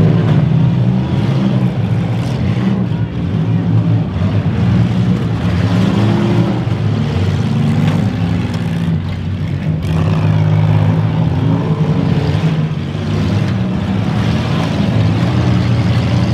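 Many demolition derby cars' engines running hard and revving together as the cars drive at and ram one another, with a few sharp bangs from collisions about nine and ten seconds in.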